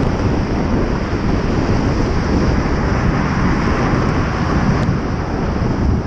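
Wind buffeting the microphone while cycling, over a steady wash of road and traffic noise.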